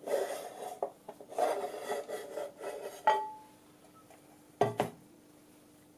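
Metal instrument chassis scraping and rubbing as it is slid out of its sheet-metal case, ending in a short metallic ring about three seconds in. Two quick knocks follow near the five-second mark.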